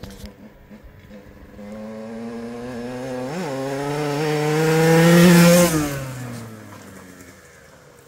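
Honda CRE two-stroke dirt bike, fitted with an 80 cc cylinder and Dellorto carburettor, riding past. Its engine note grows louder over a few seconds, with a quick blip about three and a half seconds in, then drops in pitch and fades away.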